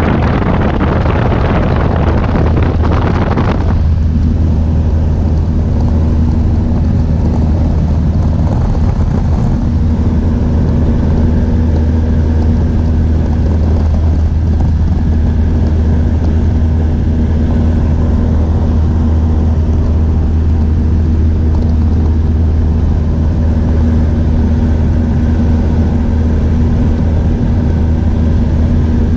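Steady drone of a small high-wing light aircraft's engine and propeller, heard from inside the cabin. For the first few seconds loud rushing wind covers it, then cuts off suddenly, leaving the drone.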